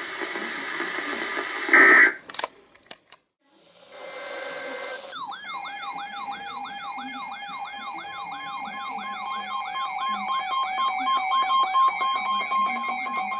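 Electronic siren-like alert tone, a pitch that sweeps up over and over about three times a second on top of several steady tones, starting about five seconds in. It is preceded about two seconds in by a short, loud electronic burst, the loudest moment.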